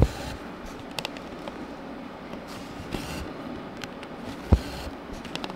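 Cross-stitch needle and embroidery floss being worked through fabric in a hoop: soft swishes as the thread is drawn through, with a few light taps and one heavier thump about four and a half seconds in.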